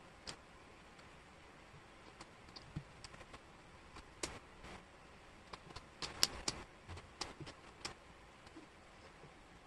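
Wooden jigsaw puzzle pieces clicking and tapping against a tabletop as they are picked up and pressed into place, in faint, scattered clicks that are busiest in the middle.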